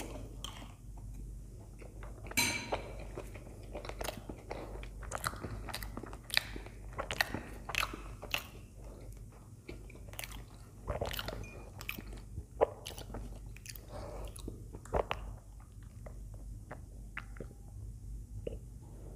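Close-miked chewing of soft idli and sambar: irregular wet mouth clicks and smacks.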